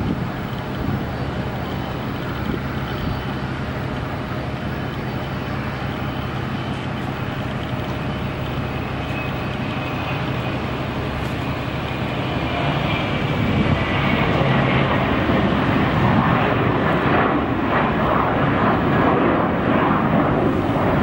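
Jet airliner's engines passing, a steady rushing noise with a thin whine that glides slightly down in pitch, the whole sound growing louder about two-thirds of the way in.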